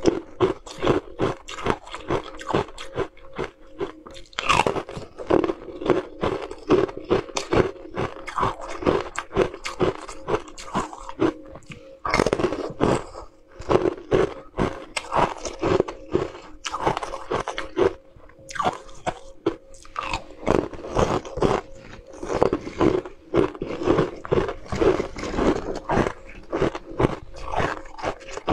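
Close-up biting and crunching of translucent green ice sticks: a dense run of sharp crunches in quick clusters, with brief pauses between bites.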